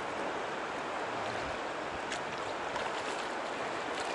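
Shallow river flowing steadily, an even rush of water.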